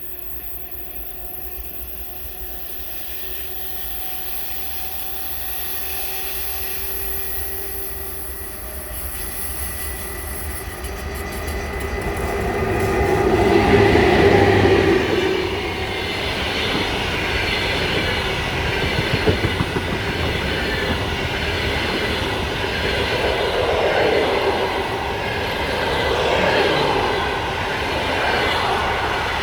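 EP1M electric locomotive hauling a passenger train past at low speed, growing louder to a peak about halfway through, then the coaches rolling by with wheels clacking over rail joints. The wheels squeak and squeal against the rails as the train pulls out of the station.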